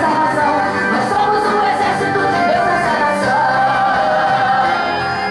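Brazilian gospel song playing: a woman singing a melody over a band with a steady beat.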